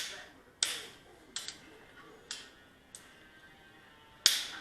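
Click-type torque wrench clicking off several times as bolts reach their torque setting in the 60 stage of the sequence. About five sharp clicks, each with a short ring, the loudest near the end.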